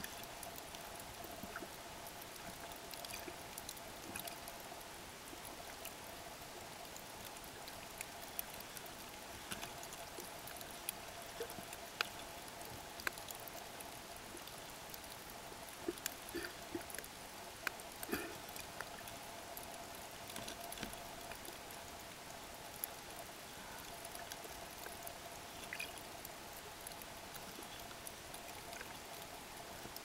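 Underwater ambience of a shallow coral reef flat picked up by a camera on the bottom: a steady watery hiss with scattered crackling clicks and pops, busiest about halfway through, and a faint steady hum underneath. The uploader puts the noise down to the wind stirring the water.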